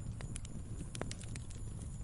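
Log fire crackling: irregular sharp pops and snaps, one louder snap about a second in, over a steady low rumble of burning.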